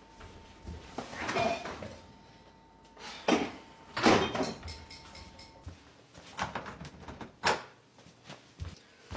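Refrigerator doors being opened and shut: a series of thuds and rattles, the loudest about four seconds in. A single sharp click comes near the end.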